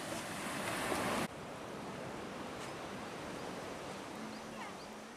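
Sea surf and wind noise on the beach, loud for about the first second, then cutting off suddenly to a quieter wash of surf with a few faint high chirps.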